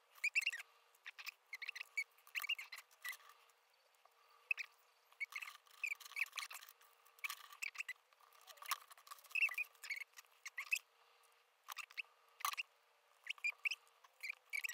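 Paper and plastic embellishment packets being handled on a cutting mat: irregular sharp clicks and taps, mixed with many short, high squeaky chirps.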